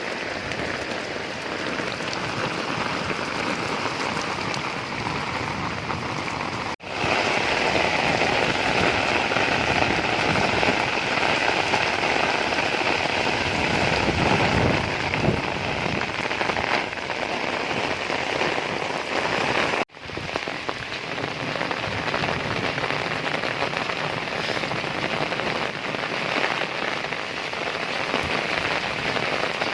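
Heavy rain pouring steadily. The sound drops out for an instant twice, about seven and about twenty seconds in, and the rain is louder between those two breaks.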